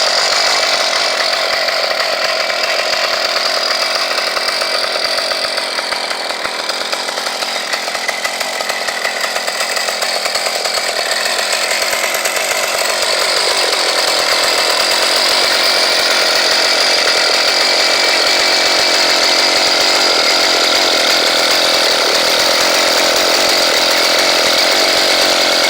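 A 100cc two-stroke motorized-bicycle engine running through a stainless rotating Gatling-style exhaust pipe. It is steady and loud, easing off slightly for a few seconds in the middle and then coming back up.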